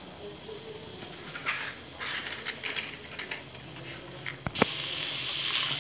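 Cabbage, capsicum and chicken frying in a wok: faint crackling with small scattered ticks, then a sharp click about four and a half seconds in and a louder, steady sizzle.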